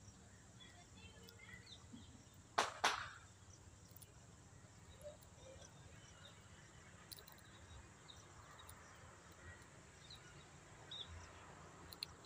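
Quiet outdoor background with a few faint, short high chirps, broken by two sharp clicks close together about two and a half seconds in.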